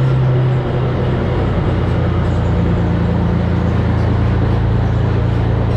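Volvo N12 tractor truck's diesel engine running under way through a loud exhaust, heard from outside the cab with wind rushing past. The engine note changes with a brief dip about half a second in, then runs steady.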